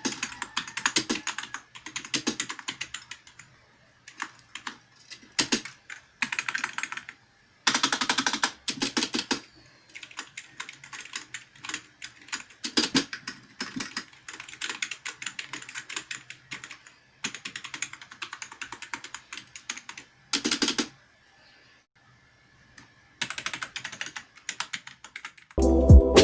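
Typing on a Zeus K300 RGB membrane keyboard: runs of quick key presses in bursts with short pauses and one longer pause near the end, showing how its membrane keys sound.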